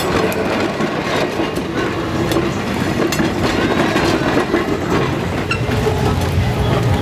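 Vintage streetcar rolling past, its steel wheels clicking and clattering over the rail joints.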